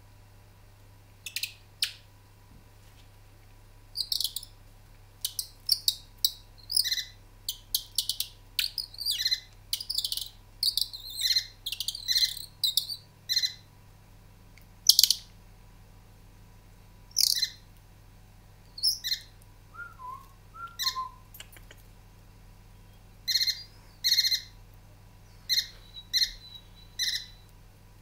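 Caged painted firetail and Gouldian finches calling, many short, high chirps in quick irregular runs, some in close pairs.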